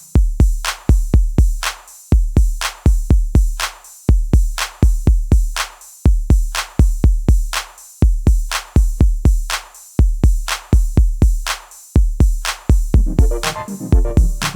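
Electronic background music: a steady drum-machine beat of deep kick drums and sharp hi-hat clicks, with synth lines coming back near the end.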